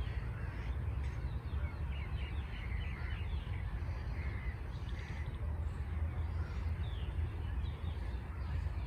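Several birds calling and chirping in short, scattered calls, over a steady low rumble.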